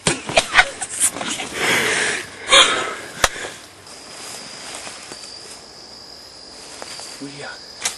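Rustling, clicks and knocks of people moving about in a camouflage ground blind for the first three seconds or so. After that, a steady high-pitched insect drone, like crickets, with faint rustling.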